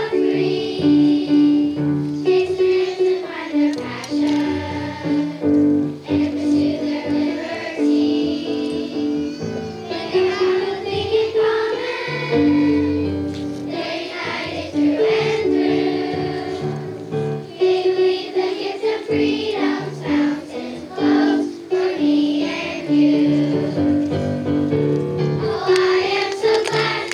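Children's choir singing with musical accompaniment, a steady run of sustained notes.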